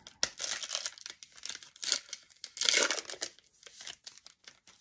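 Metallic foil wrapper of a Select basketball card pack being torn open and crinkled by hand: a quick run of rips and crackles, with the loudest tear about two and a half seconds in, dying away near the end.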